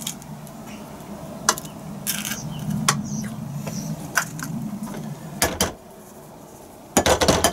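Eggs being cracked into a glass mixing bowl: scattered light clicks and taps, then a louder cluster of knocks near the end.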